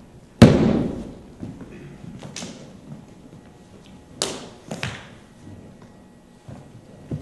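A heavy foot stamp on a wooden floor about half a second in, ringing out briefly in the hall, then several lighter, sharper knocks of feet on the floor as the martial arts form goes on.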